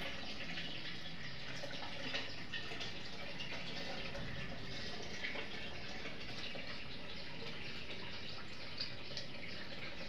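Water running steadily from a pipe spout into the stone well basin, with a few faint drips or ticks.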